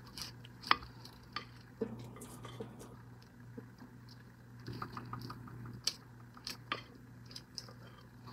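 Spatula scraping thick banana bread batter around the sides of a glass mixing bowl: soft scraping with scattered light clicks and taps of the spatula against the glass.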